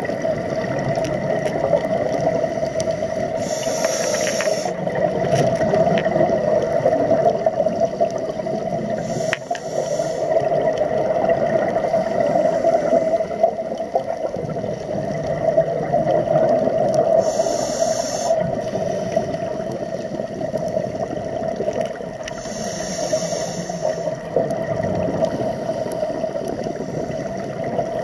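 Underwater sound through a camera housing: a steady muffled rushing, broken four times by about a second of high hiss and bubbling, typical of a scuba diver breathing through a regulator.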